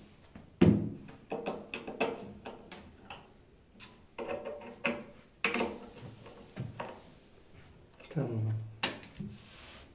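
Irregular knocks, clicks and clatter of wooden cabinet panels and fittings being handled and pushed together during vanity cabinet assembly, with a sharp knock about half a second in.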